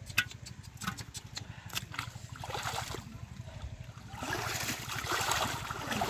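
Wading through shallow muddy water: sloshing and splashing that grows louder about four seconds in. A few sharp knocks come in the first two seconds.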